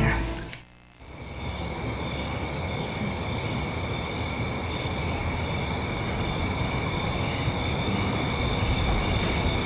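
Night chorus of insects and frogs fading in about a second in: steady high chirping trills, one of them pulsing about twice a second, over a soft background hum.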